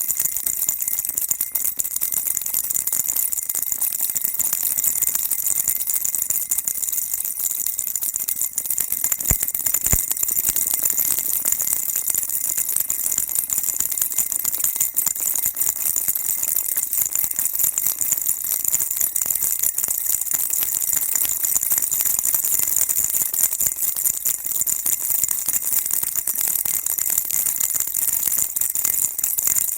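Baby rattle shaken continuously: a steady, dense, high rattling that does not pause.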